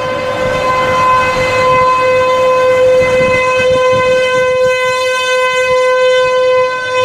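Outdoor tornado warning siren sounding a loud, steady tone held on one pitch, the alert for a tornado warning.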